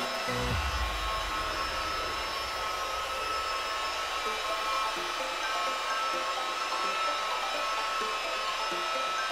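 Electric rotary polisher running steadily, a continuous motor whine with a hiss, its pad buffing scratches out of car window glass with a cerium oxide and water slurry.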